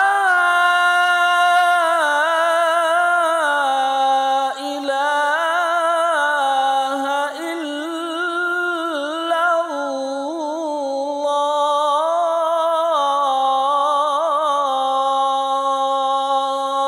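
A single unaccompanied voice chanting in long held notes with wavering ornaments, in the style of Islamic recitation.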